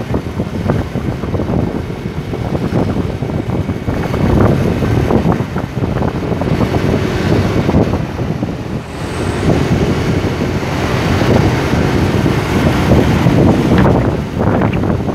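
Wind buffeting a moving microphone, gusting up and down, over the running engine and road noise of traffic.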